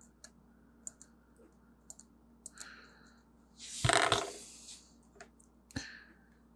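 Light clicks and scratches of a small metal tool picking and scraping at glue residue on a phone's internal metal shield. About four seconds in there is a louder clatter of about a second as tools are handled on the desk, followed by a sharp knock.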